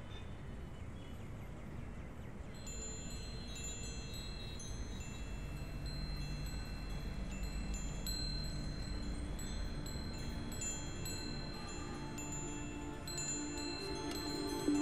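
Metal wind chime tinkling, with scattered light high notes starting a couple of seconds in, over a low steady background rumble.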